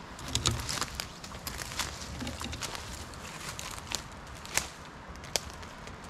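Footsteps crunching through dry leaf litter and brush, with irregular crackles and a few sharper twig snaps, the loudest about four and a half seconds in.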